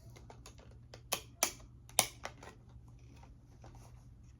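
A DVD box set being handled: light taps and rustles, with three sharp plastic clicks about a second, a second and a half and two seconds in.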